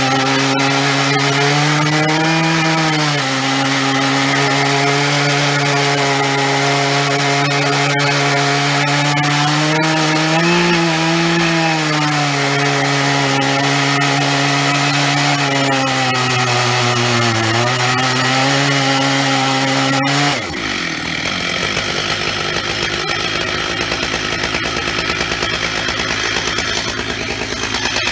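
Stihl MS 880 two-stroke chainsaw at full throttle, ripping a slab along an oak log in a chainsaw mill. Its pitch sags and recovers as the load changes. About twenty seconds in, the pitch and level drop suddenly and the saw falls to a lower, rougher idle.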